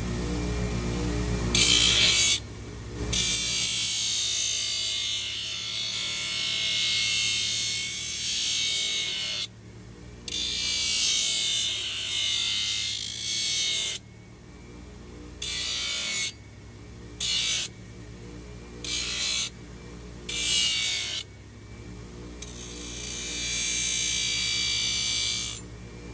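A small power tool, such as a grinder or sander, running in repeated bursts with a high-pitched hiss. The bursts start and stop abruptly: a long one of several seconds near the start, then a run of shorter ones, and another long one near the end. Background music plays underneath.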